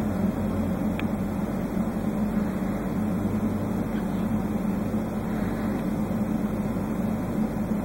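Steady low machine hum at an even level, with a faint tick about a second in and another about four seconds in.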